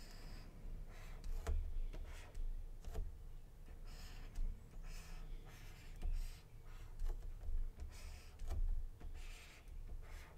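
Stylus nib scratching and tapping on a Huion pen tablet, faint short strokes spread through with a few light clicks.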